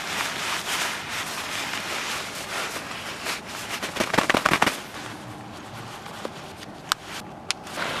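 Nylon shell of quilted down clothing rustling and swishing as it is handled and pulled on, with a quick run of crackling clicks about halfway through. Two single sharp clicks near the end.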